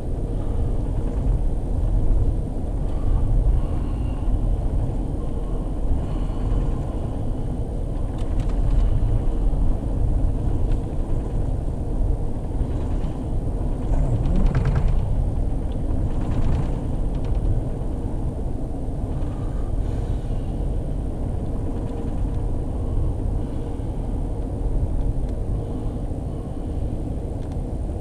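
Steady low rumble of an Amtrak passenger train car riding along the rails, heard from on board. A brief louder noise passes about halfway through.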